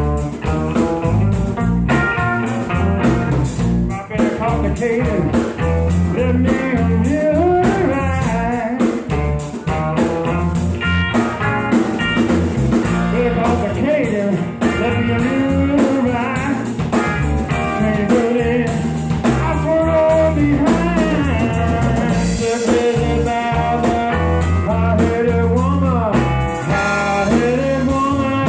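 A live band playing a bluesy rock number: semi-hollow electric guitar, electric bass and drum kit.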